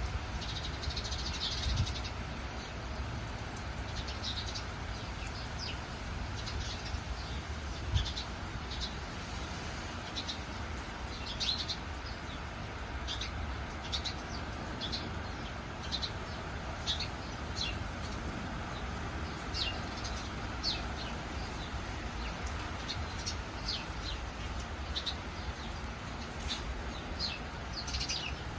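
Songbirds chirping: short high calls every second or so, scattered over a steady hiss of rain with a low rumble underneath.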